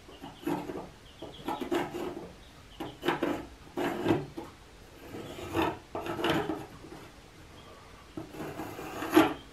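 Pencil scratching over rough, weathered pallet boards in a series of short, irregular strokes, tracing circles on the wood.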